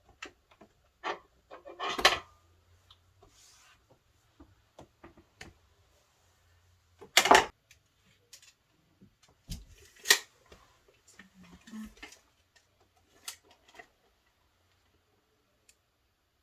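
Hard objects knocked and clattered as they are handled: a string of small clicks and taps, with sharper knocks about 2, 7 and 10 seconds in.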